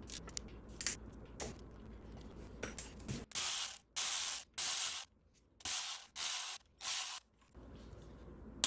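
Ratchet with a T30 Torx bit loosening the bolts of a cover on a Porsche Cayman S flat-six engine: scattered clicks at first, then six short bursts of fast ratcheting, and a sharp click at the very end.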